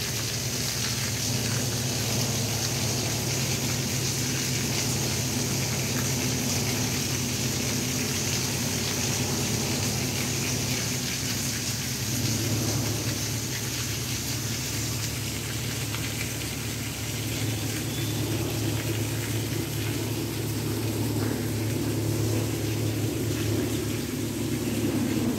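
Water falling steadily down an artificial waterfall: a constant rushing with a low rumble underneath.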